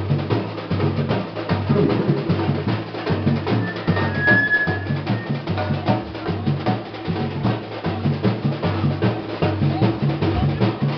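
Batucada-style drum group playing: deep bass drums keep a steady, repeating beat under sharper drum strikes.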